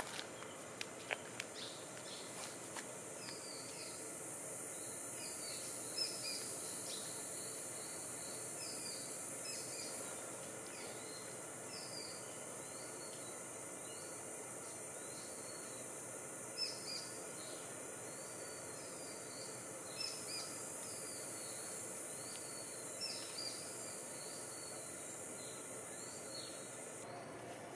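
Rainforest ambience: a steady high insect drone under a bird's short chirps, repeated every half second or so, with a few sharp clicks in the first seconds. The insect drone stops near the end.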